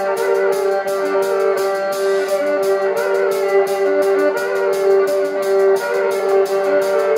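Live violin and drum kit music: the violin plays a wavering melody over a steady held drone note, while the drums keep a quick, even beat of about four to five cymbal ticks a second.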